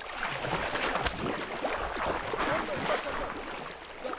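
Pond water splashing and sloshing close up as a person moves through it by arm and body, with gurgling bubble sounds.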